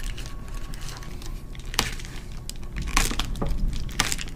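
Aluminium foil tape crinkling as cut tabs of it are folded over and pressed down by hand onto a foil-faced insulation wrap, with a few sharp crackles, the louder ones in the second half.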